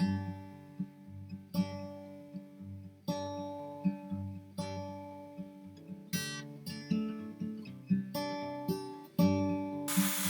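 Acoustic guitar background music, strummed chords that ring and fade about every second and a half. Near the end a loud hissing power-tool noise cuts in over it.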